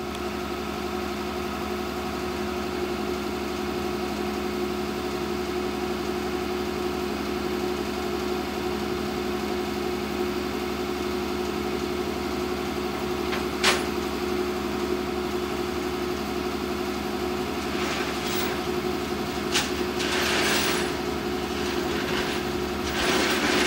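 Flatbed tow truck's engine idling steadily, a constant even hum. A sharp clank about two-thirds of the way in, and a few more short knocks and rattles near the end.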